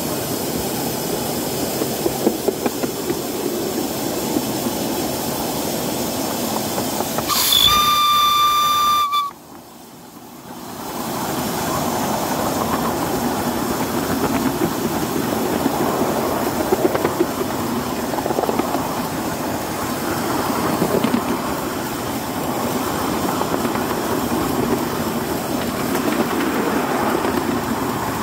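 Miniature live-steam locomotive running along its track, a steady noisy rush heard from a microphone on the engine itself. About eight seconds in comes one steam whistle blast of under two seconds at a single steady pitch, the loudest sound; right after it the sound drops away for a couple of seconds before the running noise comes back.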